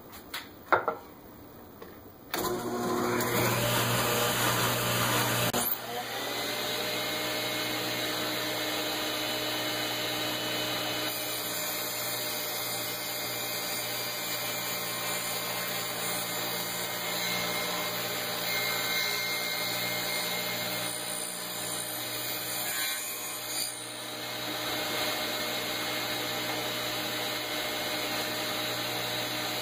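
Workshop power tool and shop vacuum starting up about two seconds in, then running steadily as a rabbet is cut in MDF.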